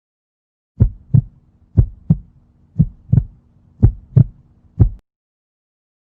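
Heartbeat sound effect: low lub-dub thumps about once a second, four double beats followed by a single one, starting about a second in and stopping about five seconds in.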